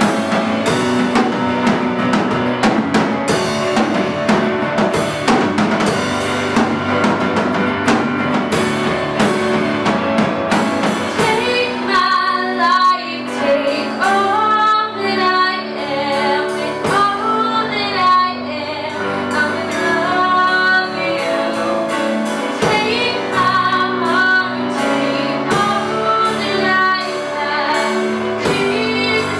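Live worship band playing: drum kit, electric guitar and keyboard in an instrumental passage with busy cymbals, then about eleven seconds in a female vocalist starts singing over the band as the cymbals drop away.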